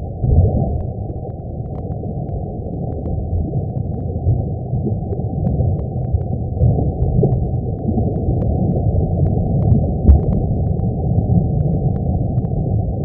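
Deep, steady rumble with scattered faint crackles, played as the sound of the Sun: solar data converted into audible sound.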